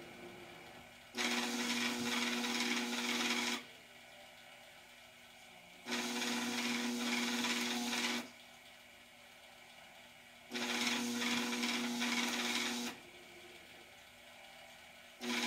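Barnhart Equipment custom sheet feeder running in on-demand cycles: its motor hums and its feed rollers rasp as they drive out one Teslin sheet, then it stops for about two seconds and starts again. Three full runs, with a fourth starting near the end, roughly every four and a half seconds.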